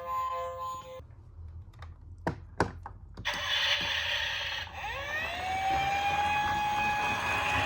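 Toy police car's electronic siren winding up in pitch and then holding a steady wail, over a hiss. A few sharp clicks come just before it.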